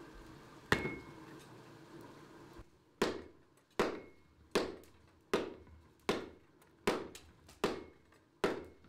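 Water-powered trip hammer pounding hot iron on an anvil. One ringing strike comes first, then from about three seconds in a steady beat of strikes, roughly one every three-quarters of a second.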